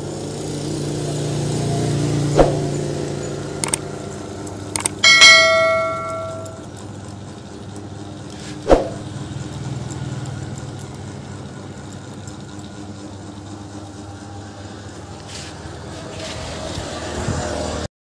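A steady low motor hum that swells over the first two seconds and then settles, with a few sharp clicks and, about five seconds in, a loud metallic ring that dies away over a second or so. The sound cuts off just before the end.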